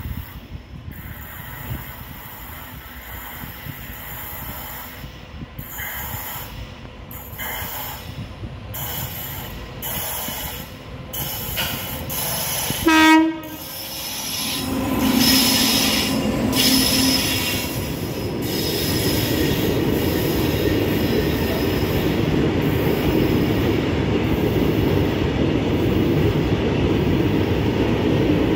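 A train nearing on the line: a short horn blast about halfway through is the loudest moment. The train then runs past with steady, louder wheel and rail noise that holds to the end.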